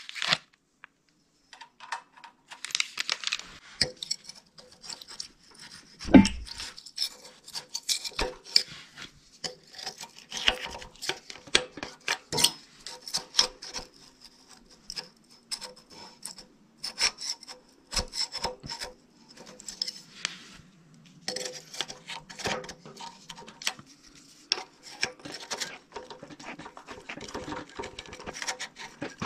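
Metal hand tools working on threaded steel studs: a wrench scraping and clicking as stud extenders are turned onto a generator carburetor's mounting studs, in irregular taps and rubs, with one louder thump about six seconds in.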